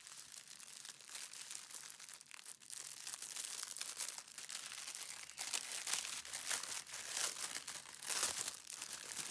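Small plastic bags of diamond-painting drills crinkling and rustling as they are handled.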